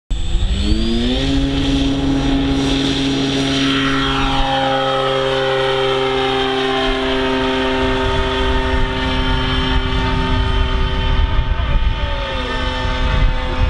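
Electric motor and propeller of a radio-controlled model aircraft: a whine that rises quickly as the throttle opens for take-off, then runs steady at full power. Part of the whine drops in pitch a few seconds in as the plane passes and climbs away.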